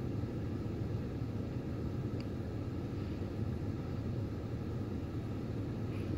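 Steady low rumble inside a truck cab with the engine idling.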